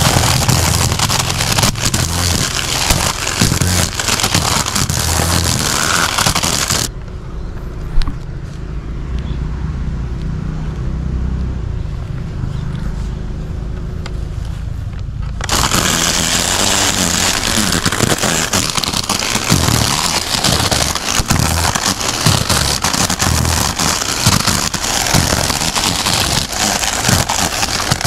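Battery-powered Total string trimmer cutting grass with its 2.5 mm nylon line: a dense, crackling whir as the spinning line whips through the grass. It drops to a quieter, lower sound for about eight seconds in the middle, with a single sharp click near the start of that lull, then the loud cutting noise resumes.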